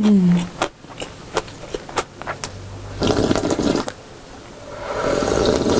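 Person slurping noodle-soup broth straight from a bowl: a few light clicks, then two long slurps, one about three seconds in and a second, rising one near the end.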